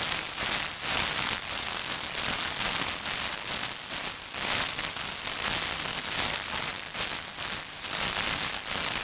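White noise whose level is modulated over time, scaled block by block to the energy of a music excerpt: the difference signal of music with white noise added at 13.6 dB signal-to-noise. A hiss that swells and fades in quick, uneven pulses.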